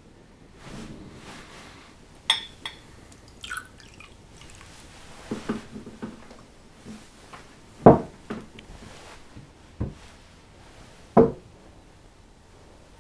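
Scattered clinks of glass and tableware in a quiet room, with a couple of heavier knocks about eight and eleven seconds in.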